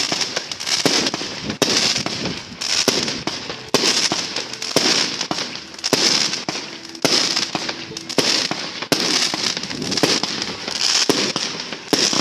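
Fireworks going off: a steady run of bangs about once a second, each trailing off in a crackling hiss.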